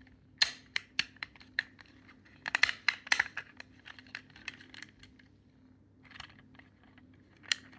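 3D-printed plastic parts of a ratchet strap reel clicking, snapping and scraping as they are pressed together and handled, in irregular sharp clicks with a busy cluster a few seconds in.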